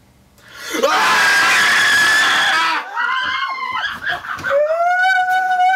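A group of young men screaming at once for about two seconds. Shorter yells follow, then one long held wail near the end.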